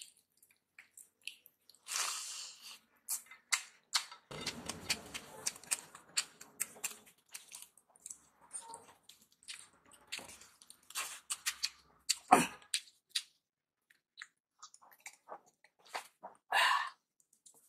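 Wet squelching and clicking of fingers mixing rice into runny lentil dal on a plate, with the smacking of hand-eaten mouthfuls being chewed. The sounds come in irregular bursts, with one sharper click about two-thirds of the way through.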